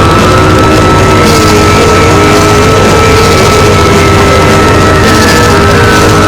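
Noisegrind/noisecore recording: a loud, unbroken wall of distorted noise with a steady high whine and a wavering mid-pitched tone running through it.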